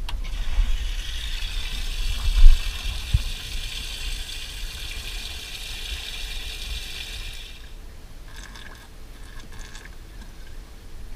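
Water running into a boat's live well from its pump, a steady hiss that stops about seven and a half seconds in. A thump about two and a half seconds in.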